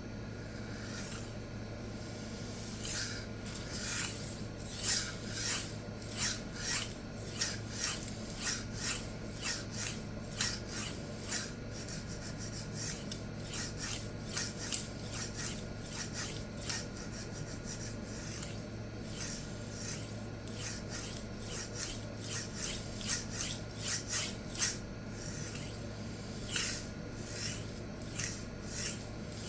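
A 52100 steel chef knife blade being stroked back and forth across a wet resin-bond diamond sharpening stone: a long run of short scraping strokes, about two a second.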